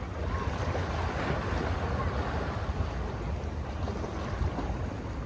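Sea waves washing on the shore, a steady noisy wash with wind on the microphone adding a heavy low rumble.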